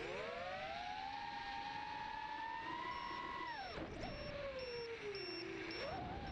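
Racing quadcopter's four brushless motors and three-blade props whining, as picked up by the onboard camera. The pitch rises as the throttle comes up, holds, then drops sharply about three and a half seconds in as the throttle is cut through a flip, and climbs again near the end. A faint high beep repeats about twice a second in the second half.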